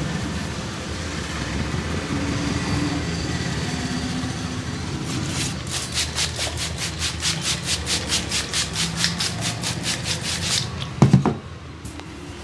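Massage hand strikes: fast, even slapping or chopping of hands on the body, about five strikes a second for around five seconds, ending in one loud, low thump. Before the strikes, a steady street-traffic hum.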